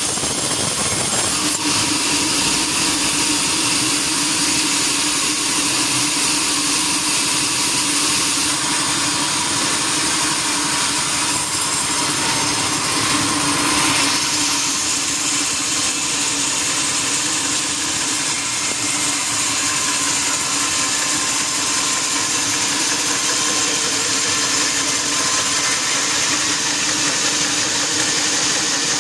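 Sawmill machinery running steadily, a constant motor drone with a high hiss over it.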